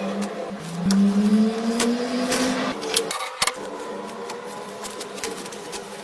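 A small electric motor, likely a power tool, running with a steady hum that slowly rises in pitch over the first few seconds. It cuts out briefly about three seconds in, then keeps running more faintly with a few light clicks.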